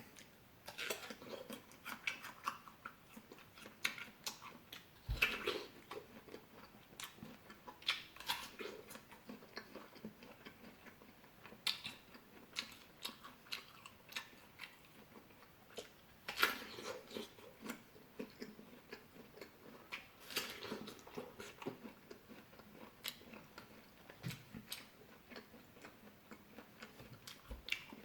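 A person eating fruit close to the microphone: bites and chewing, heard as irregular short clicks and crackles.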